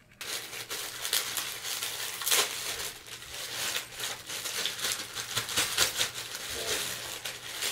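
Clear plastic bag holding a flat-pack trolley's screws and small parts, crinkling as it is handled and opened, with sharp crackles.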